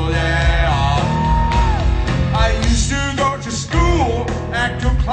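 Live rock band playing loud amplified music, with a melody line that bends in pitch and holds one long note about a second in.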